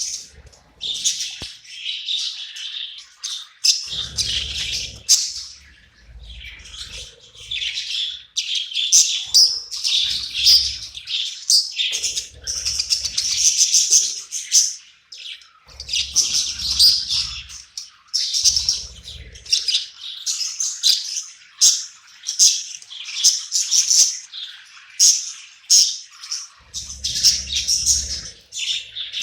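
Budgies chattering without a break: a fast, warbling run of high chirps, clicks and squawks.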